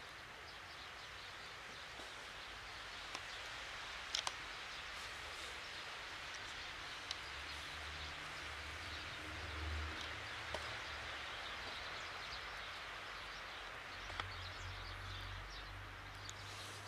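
Quiet outdoor ambience: a steady hiss with a few faint scattered clicks, and low rumbles around the middle and again near the end.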